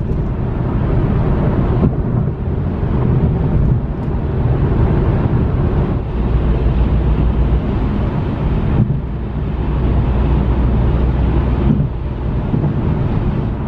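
A car's driving noise: a steady low rumble of engine and tyres with a hiss of wind over it.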